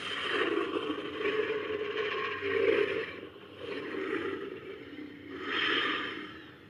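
Sound-designed Zhuchengtyrannus (tyrannosaur) vocalization: raspy, grating growls in about three swells, the first and longest lasting roughly three seconds, dying away near the end.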